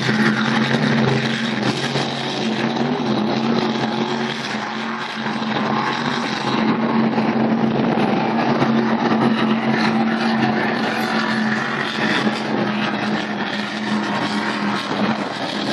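Offshore racing powerboats' engines running at racing speed: a steady droning hum that holds nearly one pitch, with small wavers.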